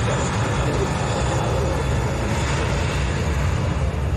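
Jet airliner's engines on the runway, a steady, loud rush of noise heavy in the low end.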